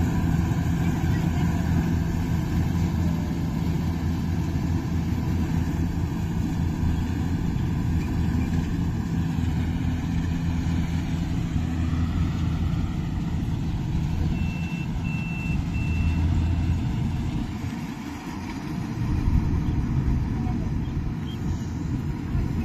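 Diesel engine of farm harvest machinery running steadily, easing off briefly about three quarters of the way through. Three short, high beeps sound partway through, like a reversing or warning alarm.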